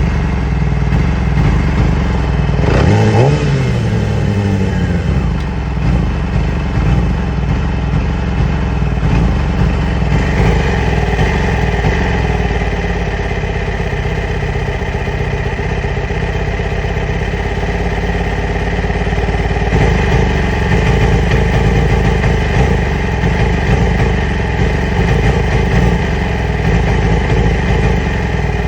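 2008 Yamaha R6's inline-four engine idling roughly, with one quick throttle blip about three seconds in that revs it up and lets it fall back to idle. The rough idle is one the owner is trying to cure with new ignition coils and spark plugs.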